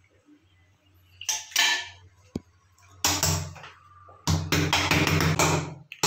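Hammer knocking on a metal cylindrical door-lock knob to seat it in the door: a few separate knocks, then a quick run of about five taps a second near the end.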